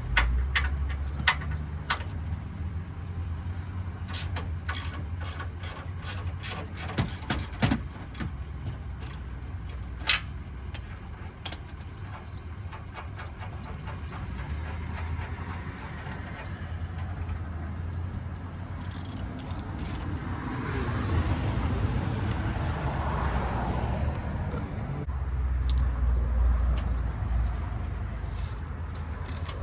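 Scattered metallic clinks and knocks of hand tools and bumper hardware being worked on a pickup's front bumper, a few sharper knocks among them, over a steady low rumble. A rushing hiss swells and fades about two-thirds of the way through.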